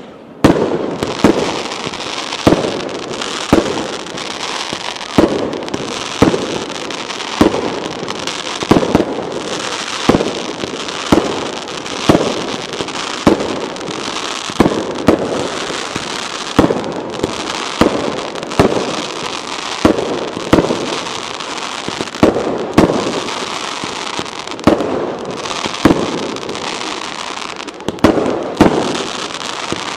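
Pyrotechnic fireworks display: a steady run of sharp bangs, roughly one a second, with crackling and fizzing between them, starting about half a second in.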